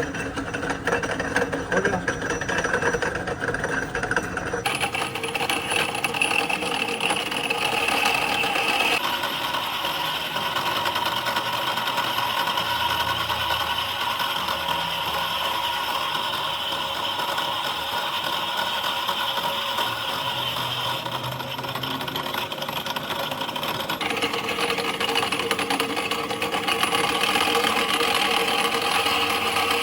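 Workshop machinery running steadily, with a few faint steady tones in it. The sound changes abruptly three times, about five, nine and twenty-four seconds in.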